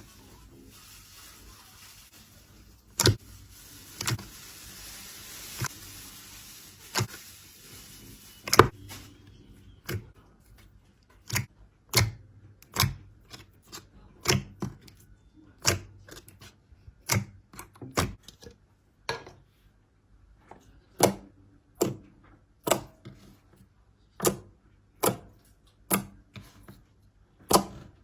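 Short, sharp taps or clicks at a steady pace, about one every three-quarters of a second, starting about ten seconds in; before that, a few scattered clicks over a faint hiss.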